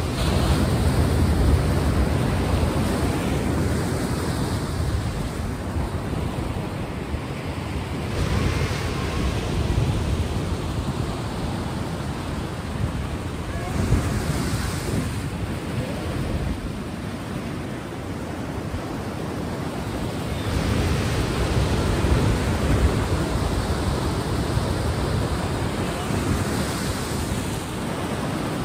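Ocean waves washing onto a shore, a steady rush of surf that swells and eases every few seconds.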